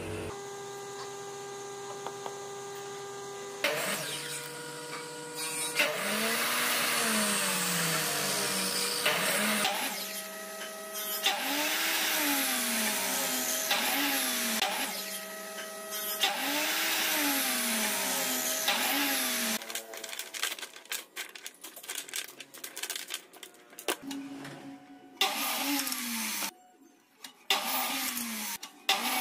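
Compound miter saw running and cutting wooden sticks into short blocks, one cut after another, its motor pitch swinging up and down through each cut. Over the last third the cuts come in shorter bursts among knocks and clatter of cut-off blocks.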